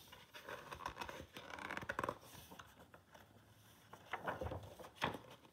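Pages of a picture book being turned by hand: faint, soft paper rustling and handling noise, with a couple of light knocks near the end.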